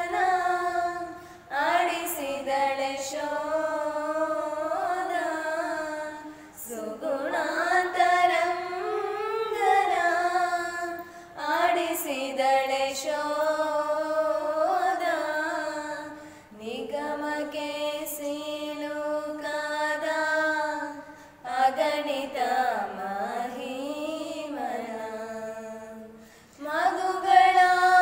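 Female voices singing a slow, melodic song in long phrases of wavering, sliding pitch. The phrases last about five seconds each, with a short pause between them.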